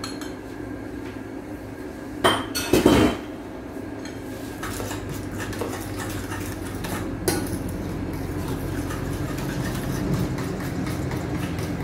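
Metal spoon stirring a runny batter in a glass bowl, scraping and clinking against the glass with frequent small clicks. A louder clatter of utensils against the bowl comes about two to three seconds in.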